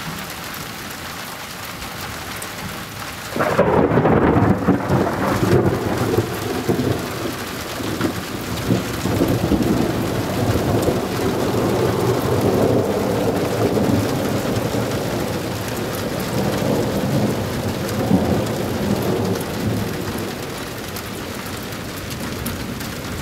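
Steady rain, then about three and a half seconds in a sudden, loud thunderclap that rolls on in uneven peals and slowly dies away over nearly twenty seconds.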